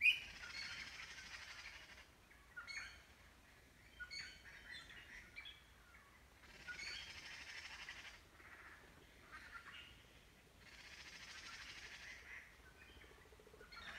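Birds singing and chirping faintly: three long high trilling phrases of about two seconds each, with short chirps between them.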